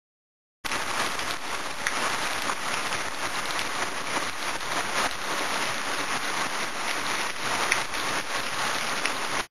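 Heavy rain falling on leafy trees: a steady, dense hiss with scattered louder drops, starting abruptly under a second in.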